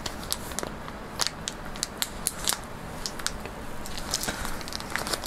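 Plastic packaging being handled: irregular sharp crackles and clicks at an uneven pace.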